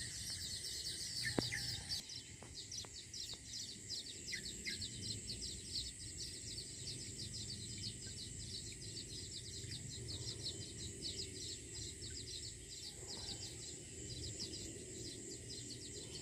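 A small insect calling steadily in a rapid, even pulsing trill with a thin high hum under it, and a few short bird chirps in the first few seconds.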